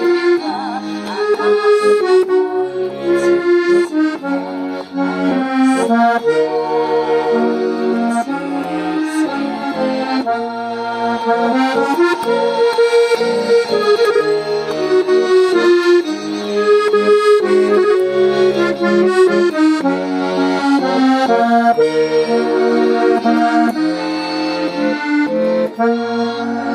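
Accordion playing a song melody with the right hand over a left-hand accompaniment of bass notes sounding at regular intervals.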